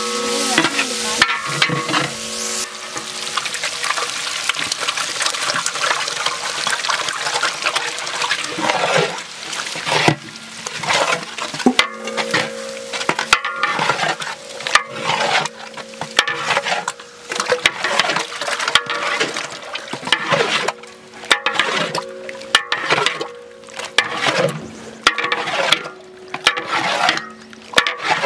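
A long-handled metal spatula stirring and scraping a large batch of egg mixture in a big aluminium pot: a steady hiss at first, then repeated scraping strokes about once a second.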